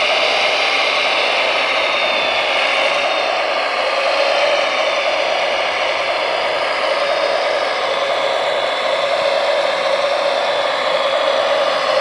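Radio-controlled model wheel loader running steadily as it tows a trailer, giving an even, mid-pitched motor and gear whir with a higher whine over it.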